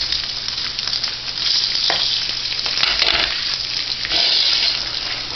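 Eggs frying in a skillet on a gas stove, sizzling with a steady crackling hiss.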